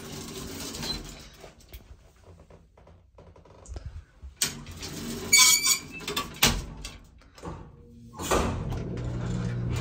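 Vintage Otis elevator's collapsible metal scissor gate being pulled shut by hand, a burst of metal clattering and ringing with a latch clank about halfway through. Near the end, right after the floor button is pressed, the elevator starts with a steady low hum as the car begins to move.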